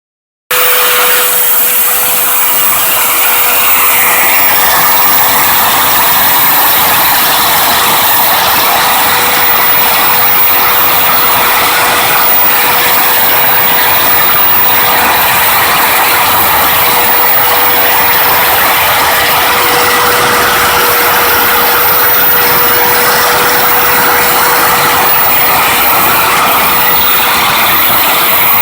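Lathe rigged for milling, its cutter cutting a keyway slot in metal: a steady, loud machining noise with a constant whine, starting about half a second in.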